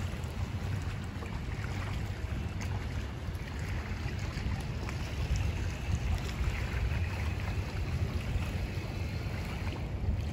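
Steady wind noise on the microphone: an even low rumble with a fainter hiss above it.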